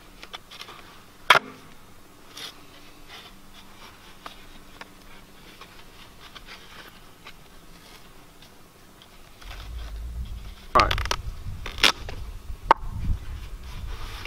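Duct tape being pulled off the roll and wrapped around a corrugated plastic drain-pipe joint, in scratchy rips, with a sharp click about a second in. Near the end a low rumble comes in, with several louder scrapes as the pipe and its fabric sock are handled.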